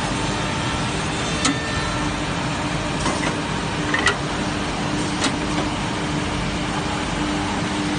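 Automatic double-end trim saw running: a steady motor hum and hiss, broken by a few sharp clacks at uneven intervals as the pine boards are clamped and moved through the trimming heads.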